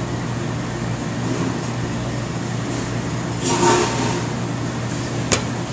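Steady low hum of kitchen machinery. A brief noisier rustle comes about three and a half seconds in, and a single sharp click near the end.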